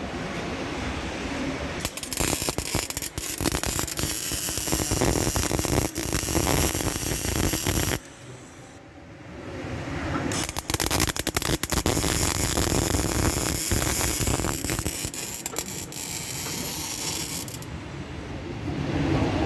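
CO2 (MIG) welder welding car chassis steel, a dense, rapid crackle that pauses for about two seconds midway and then runs on.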